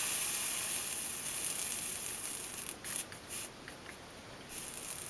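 Soldering iron on flux-wetted solder, sizzling and hissing steadily, then in shorter, patchier spurts after about two and a half seconds.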